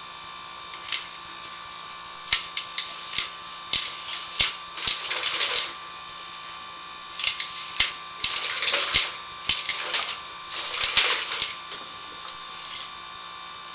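Sewer inspection camera and its push cable being worked through an old cast iron drain line: irregular clicks and knocks, with three spells of scraping, over a steady high hum.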